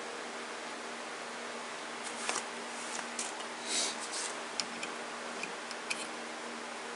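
A scatter of light, sharp clicks and scrapes from a tap being turned by hand into a drilled metal pin, over a steady low hum.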